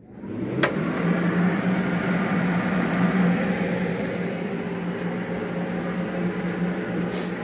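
Everlast TIG torch water cooler switched on: its pump and radiator fan spin up over about a second, then run with a steady hum, with a sharp click just under a second in. The coolant is circulating under pressure for a leak check.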